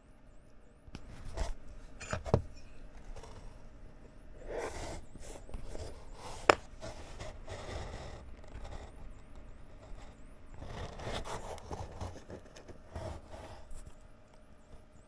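Metal tweezers and fingers handling a small wooden kit part on a cutting mat: scraping and rubbing in several stretches, with a few sharp clicks, the sharpest about six and a half seconds in.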